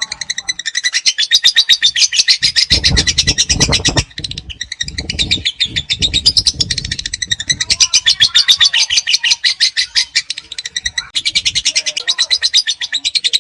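Lovebird 'ngekek': long runs of rapid, shrill chattering notes repeated at an even pace, broken by short pauses about four and ten seconds in.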